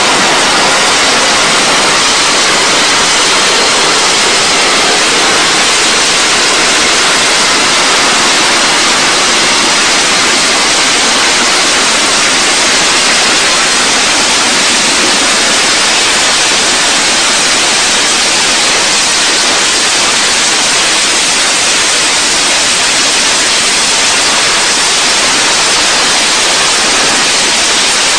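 Harrier jump jet's Rolls-Royce Pegasus vectored-thrust turbofan at hover power, a loud, steady rush of jet noise as the aircraft hovers and sets down vertically on the carrier deck.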